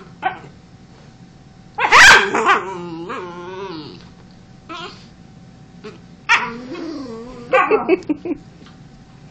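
Small black-and-white dog barking and whining in three drawn-out bouts, the loudest starting sharply about two seconds in, with shorter ones around six and eight seconds. The calls rise and fall in pitch, an objection to the cat beside it.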